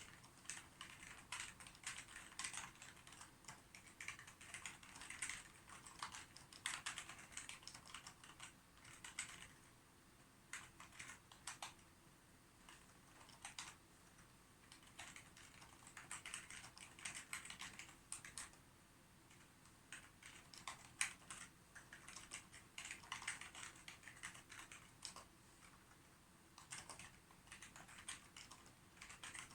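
Typing on a computer keyboard: runs of rapid key clicks in bursts, with short pauses between them.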